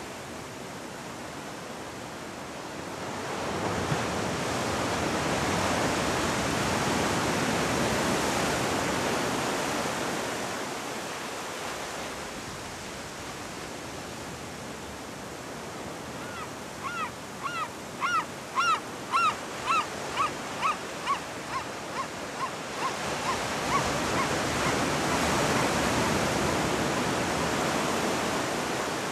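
Sea waves breaking and washing on a rocky shore, swelling twice. In between, a bird gives a run of about a dozen short, repeated calls, about two a second, that fade toward the end.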